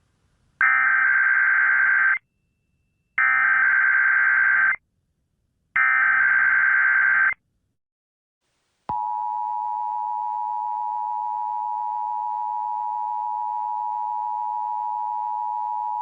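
Emergency Alert System tones for a monthly test: three short bursts of warbling SAME digital header data, each about a second and a half, then about nine seconds in the steady two-tone attention signal (853 and 960 Hz) starts and holds.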